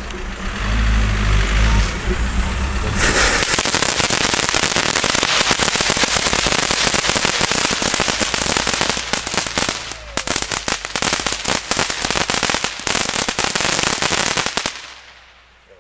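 Small Lesli ground fountain firework burning: after a low rumble, a loud steady spray hiss starts about three seconds in, with dense crackling through the second half, dying away just before the end.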